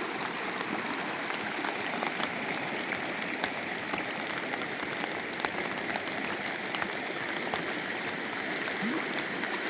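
Swollen creek in flood, muddy water rushing steadily over a field, with scattered faint ticks over the rushing.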